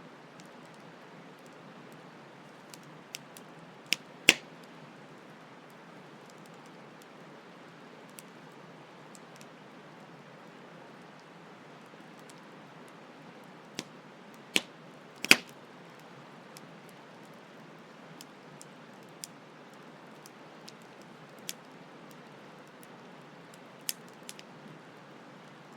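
Campfire crackling: sharp pops at irregular intervals, the loudest about four seconds in and again about fifteen seconds in, over a steady hiss of flowing stream water.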